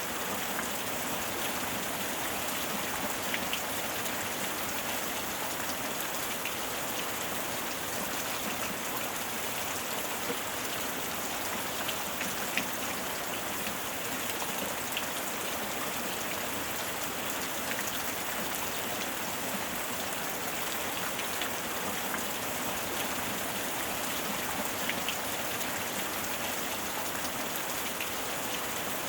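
Steady heavy rain falling, an even hiss with scattered faint drop ticks.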